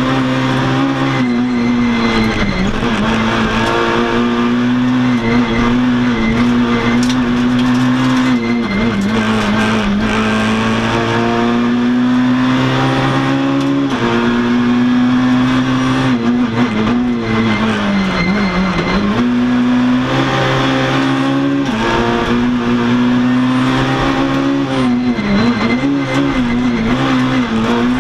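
Rally car's engine heard from inside the cabin, running hard at high revs. Its pitch dips several times as the driver shifts down and brakes, then climbs again under acceleration.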